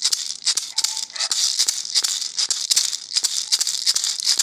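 Hand rattle shaken in a steady rhythm, about four sharp shakes a second, accompanying a chant.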